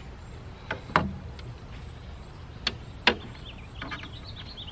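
A few sharp separate knocks and clicks as a long thin canoe rib is handled and worked into the foam-lined hull; the loudest come about a second in and just after three seconds. A low steady rumble runs underneath.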